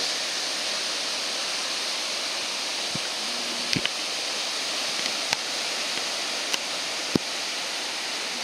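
Ocean surf washing and breaking steadily, with a few sharp clicks scattered through the middle.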